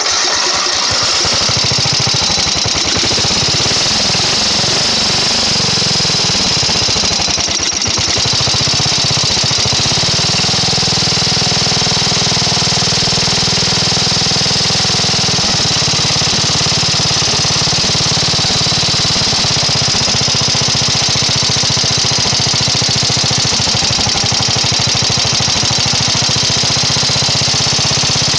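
Briggs & Stratton 12 hp flathead vertical-shaft engine running while its carburetor idle speed and idle mixture screws are turned back and forth to set the idle. Engine speed wanders up and down for about the first ten seconds, then settles into a steadier, slower run.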